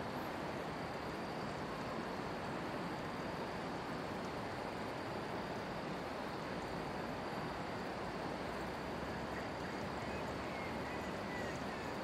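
A steady, even rushing noise with no clear beginning or end, and a few faint high chirps near the end.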